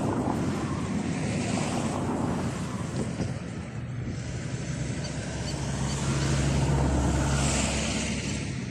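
A motor vehicle going past, its engine sound building to a peak about six to seven seconds in and then fading, over wind noise on the microphone.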